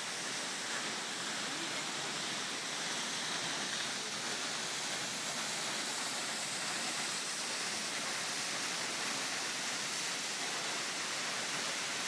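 Steady rush of water from Hardraw Force, a tall single-drop waterfall plunging into its pool, together with the beck running over rocks below it.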